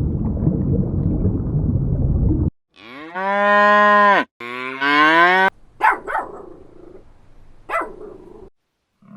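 Cattle mooing: a low rough sound for the first couple of seconds, then two long moos in quick succession, followed by a few shorter, fainter calls.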